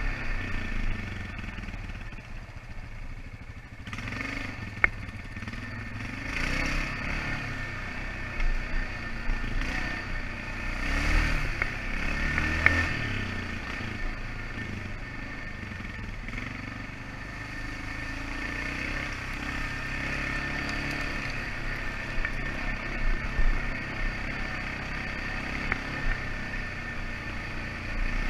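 ATV engine running under way, its pitch rising and falling as the throttle is worked, with a couple of sharp knocks, one about five seconds in and one around the middle.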